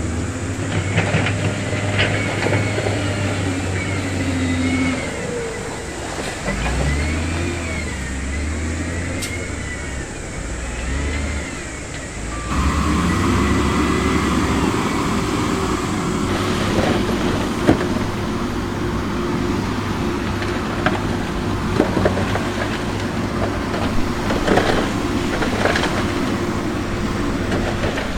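Diesel engines of heavy construction machinery working, their pitch rising and falling as they rev, with scattered sharp knocks. The sound changes abruptly about halfway through.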